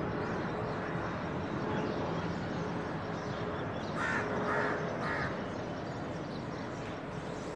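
A crow cawing three times in quick succession, about half a second apart, over a steady rushing noise.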